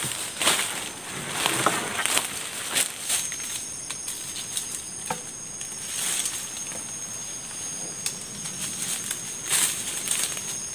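Undergrowth and dry sticks rustling and cracking, with irregular knocks, as a man gathers wood by hand in the forest. A steady high-pitched insect drone starts about three seconds in and keeps on.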